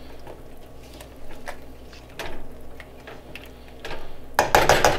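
A few light clinks of a cooking utensil against a pan, then about four and a half seconds in a fast, loud run of spatula scraping and tapping in a skillet of browning ground beef.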